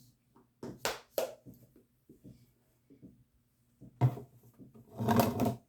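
Kitchen containers being handled: a few clicks and knocks about a second in, a sharp knock at about four seconds, then a brief noisy scrape and clatter near the end.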